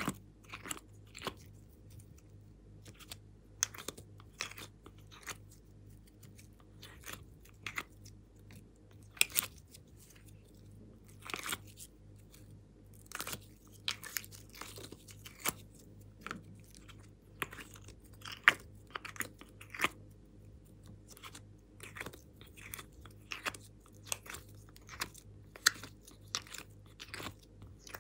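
Fingers pressing and squeezing soft clay out of a flexible plastic compartment tray, making irregular sticky squishing clicks and crackles, a few a second, over a faint low hum.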